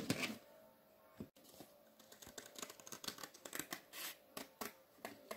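Scissors cutting round a circle in a piece of cardboard: a run of faint, irregular snips.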